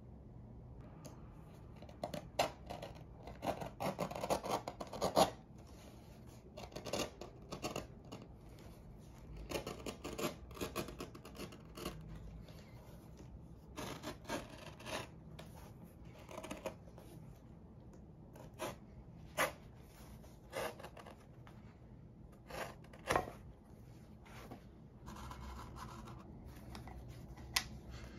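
Knife cutting through thick insole leather in short scraping strokes, coming in irregular bursts separated by pauses.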